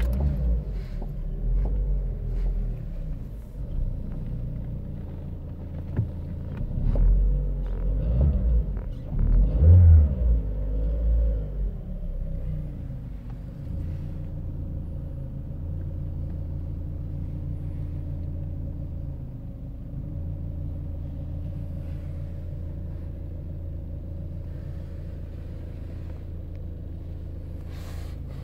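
Citroën Xsara's 1.6 16-valve four-cylinder petrol engine running just after starting. It is revved up and down a few times in the first dozen seconds, then settles into a steady idle.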